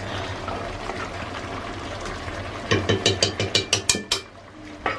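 Pork curry sizzling steadily in an iron kadai over a wood fire. About halfway through, a small metal ladle clinks rapidly against metal cookware, about ten quick ringing taps over a second and a half.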